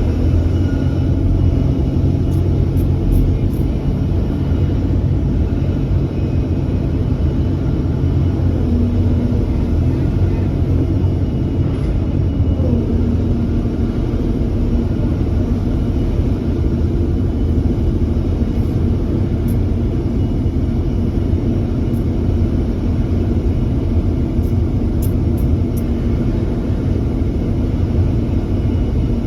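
Komatsu PC350-8 LC excavator's diesel engine running steadily with a low rumble.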